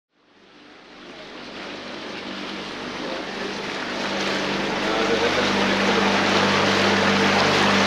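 A boat's motor running with a steady low hum, under a haze of water and wind noise. The sound fades in from silence over the first few seconds.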